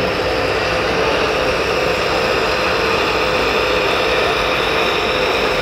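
Radio-controlled scale model Fendt 1050 tractor running steadily with a constant engine-like drone as it pulls a plough through soil.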